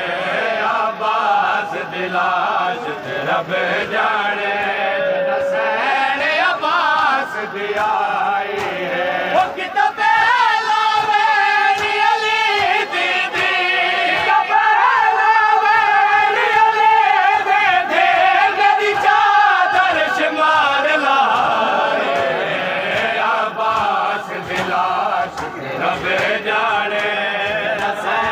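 A noha lament sung by a lead male reciter through a loudspeaker, with a crowd of men chanting along in unison and holding long notes in the middle. Sharp, regular slaps of hands beating chests (matam) run under the singing.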